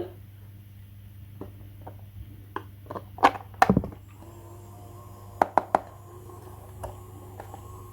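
Scattered clicks and knocks of small hard toy pieces being handled, with a louder cluster of knocks about three seconds in and three quick clicks a little later, over a steady low hum.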